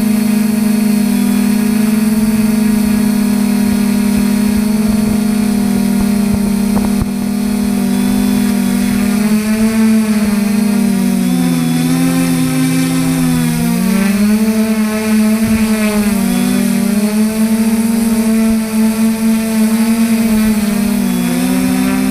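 Drone's DJI 2212 brushless motors and 9450 propellers buzzing steadily, heard close from the onboard camera. The motors' pitches split apart and merge again as they speed up and slow down to steer, most noticeably around the middle and again near the end.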